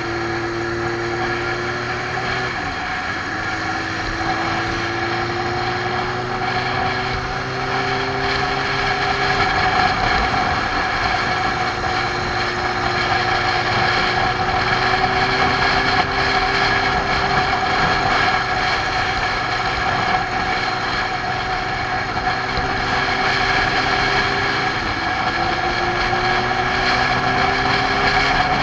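A motorcycle engine running at cruising speed, heard from the bike itself, with steady wind and road noise. The engine note eases off and picks up again briefly twice: a couple of seconds in and near the end.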